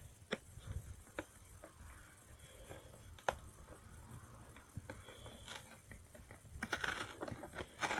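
Hands opening a tablet's packaging: scattered faint clicks and scratches, a sharper click a little past three seconds, and a longer stretch of rustling near the end.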